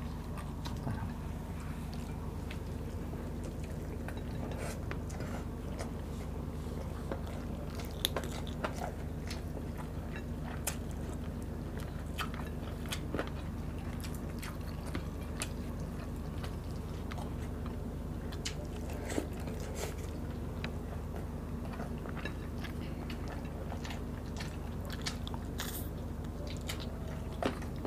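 Close-miked eating sounds of people eating chicken adobo and rice with their hands: biting and chewing, with many short, scattered clicks over a steady low hum.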